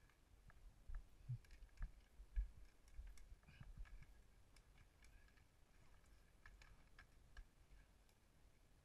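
Near silence with faint, irregular clicks and a few low knocks from a recumbent trike rolling slowly along the road, thinning out after about four seconds.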